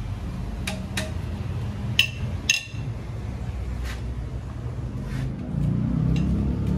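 Sharp metallic clinks and taps of steel tools or engine parts being handled, about half a dozen strikes, two of them ringing briefly, over a steady low hum. Background music comes in near the end.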